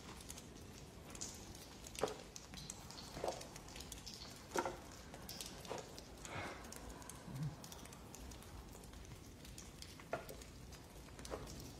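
Slow footsteps over charred debris on a burnt floor, a few steps about a second apart, pausing in the middle and resuming near the end, over a faint steady hiss.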